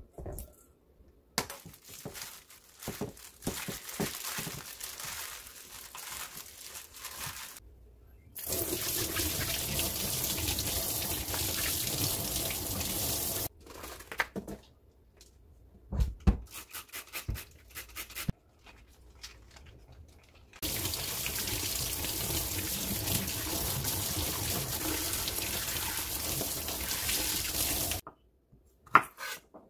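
Kitchen tap running into a stainless steel sink while green chili peppers are rinsed by hand, in two steady spells of several seconds with handling clatter between. A few sharp knife knocks on a wooden cutting board near the end.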